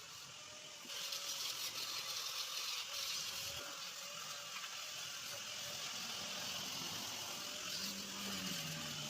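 A steady hiss that starts abruptly about a second in and keeps going, over a faint steady hum.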